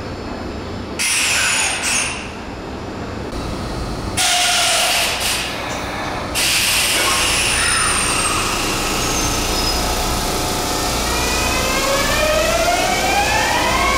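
Electric train pulling away. In the last few seconds its traction-motor whine rises steadily in pitch in several tones together as the train accelerates. Earlier come two short, louder stretches of rushing noise.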